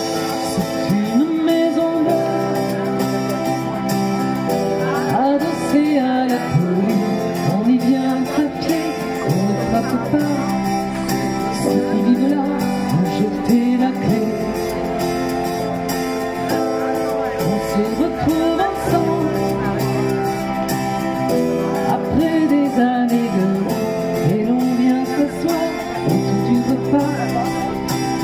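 A woman singing into a headset microphone while accompanying herself on an electric keyboard, with sustained chords under a steady melody.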